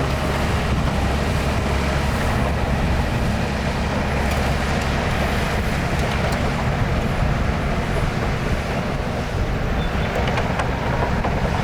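Heavy diesel engine of earthmoving machinery running steadily, a deep, even drone, with wind noise on the microphone.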